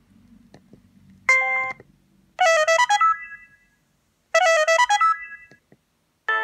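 Samsung SGH-C450 mobile phone playing ringtone previews through its small speaker as its ringtone list is scrolled: a short chime about a second in, then a brief melodic phrase played twice, each ringing out, and a fuller ringtone starting near the end. Faint button clicks from the phone's keypad come in between.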